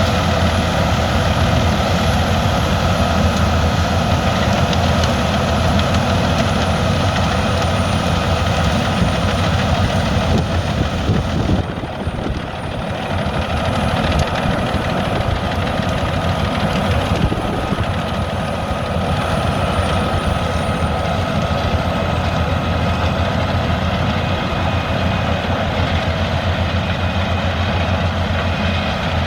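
Albach 700 hp biomass wood chipper running steadily under power, with a faint high whine that slowly falls in pitch. The level dips briefly about twelve seconds in, then picks up again.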